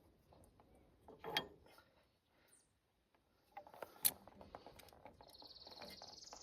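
Scattered metal clinks and knocks from hydraulic hose fittings and tools being handled while a coupler end is swapped, with two louder clanks, one about a second in and one about four seconds in. A steady high buzz starts in the background about five seconds in.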